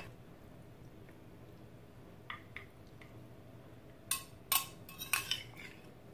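Metal cutlery clinking against a ceramic bowl while salad is scooped out: two faint clinks a little past two seconds in, then a cluster of louder clinks about four to five and a half seconds in.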